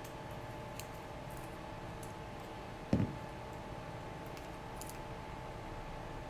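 Small clicks and taps as the propellers are worked off a micro quadcopter with a small screwdriver, with one dull thump about three seconds in. A faint steady hum runs underneath.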